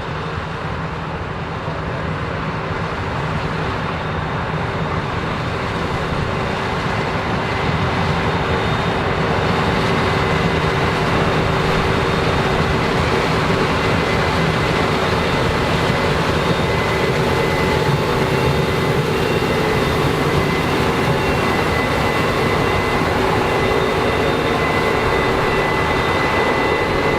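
Combine harvester running while harvesting corn: a steady machine drone with a high whine over it, growing louder over the first several seconds and then holding level.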